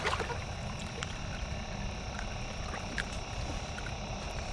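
Steady outdoor ambience at the water's edge: a low rumble and hiss with faint steady high tones, and a few soft clicks.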